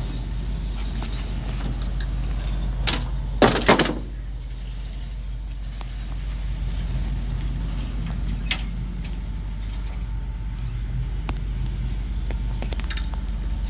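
Ford F800 fire truck's 7.0-litre gasoline V8 idling steadily, with a metal compartment door clattering open in a quick burst of strikes about three and a half seconds in and a lone click a few seconds later.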